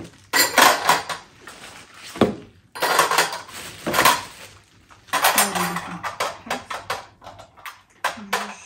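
Small silver-coloured metal cups and teapot clinking against each other and their engraved metal tray as the tea set is handled, in repeated bursts of clinks.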